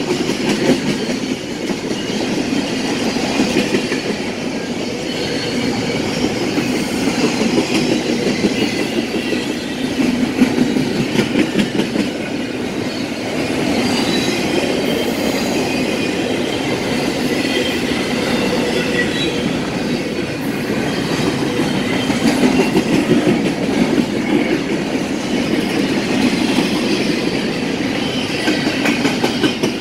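Double-stack container well cars of a freight train rolling past close by: a steady rumble of wheels on rail with continuous clickety-clack.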